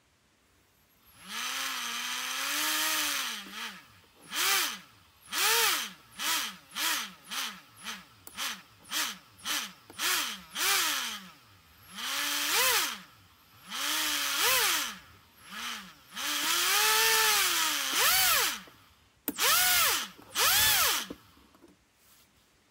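Small can motor with a propeller on the nose of an N-gauge E2 Shinkansen model, whining as its power is turned up and down again and again: many short bursts, each rising then falling in pitch, and a few longer runs of two to three seconds.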